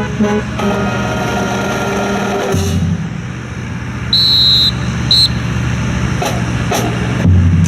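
Music over loudspeakers stops about two and a half seconds in. A steady low hum continues, with a short high whistle-like tone twice near the middle and a few sharp clicks near the end.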